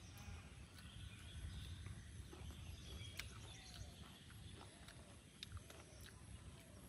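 Quiet outdoor background: a faint low rumble with scattered small clicks and faint high chirps.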